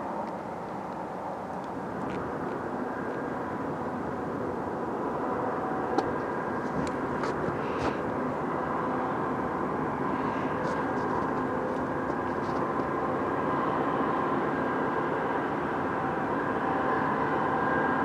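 Approaching freight train led by GE diesel locomotives: a steady engine drone that grows gradually louder, with a few faint short clicks in the middle.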